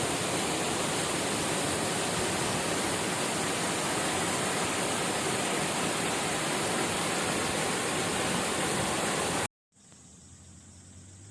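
Steady rushing of water, a dense even hiss, that cuts off abruptly about nine and a half seconds in; a much quieter outdoor ambience follows.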